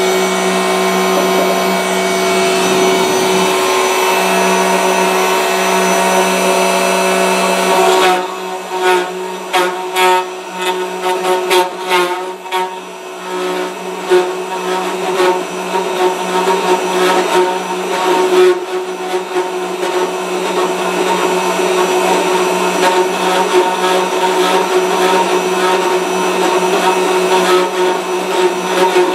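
Router motor on a gunstock duplicating carver running with a steady whine while cutting English walnut. For about the first eight seconds the cut is a steady hiss; after that it turns to irregular, rapid chattering as the cutter works the stock.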